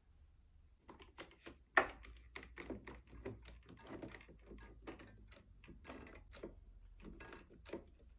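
A fast, irregular run of light clicks and knocks, with one sharper knock about two seconds in: wood pieces and hand tools being handled during assembly.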